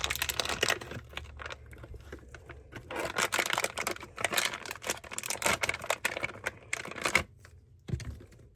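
Slime being stretched and squished by hand, giving a dense run of irregular wet clicks and crackles that die away about seven seconds in, with one last click near the end. The slime is kind of rippy and tears as it is pulled.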